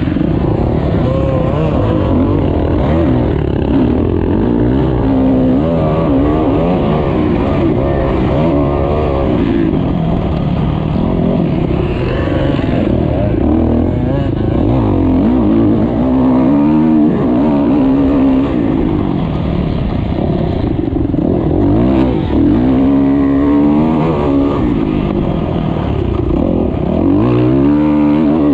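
Motocross bike engine under race load, heard close from the bike itself. It revs up and drops back again and again as the rider accelerates, shifts and brakes around the dirt track.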